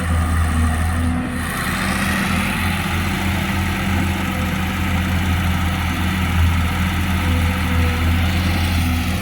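Sumitomo LS260 excavator's diesel engine running steadily with a deep hum. About a second and a half in, a brighter, harsher working noise joins it.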